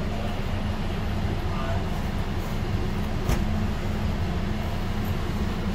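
Steady low rumble and hum of a Dubai Metro train, with one sharp click about three seconds in.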